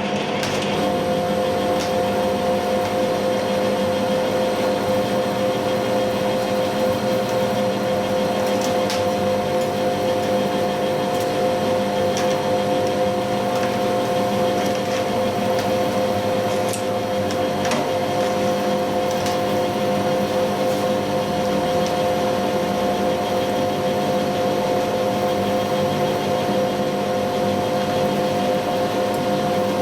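Metal lathe running steadily with a constant whine from its drive, turning a steel drive shaft on a light finishing cut. A few faint ticks come through over it.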